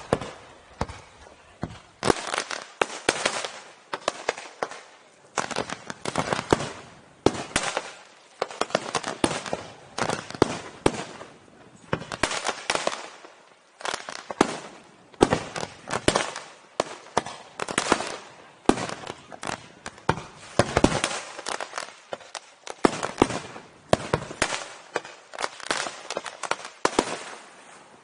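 Fireworks display by Pirotecnia Ricardo Caballer (RICASA): volleys of rapid bangs from launching comets and bursting aerial shells, about once a second.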